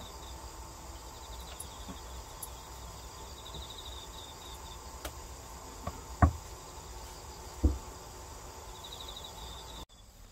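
Crickets chirping in short, fast-pulsed trills over a steady low background, with two dull knocks on a wooden cutting board about six and seven and a half seconds in.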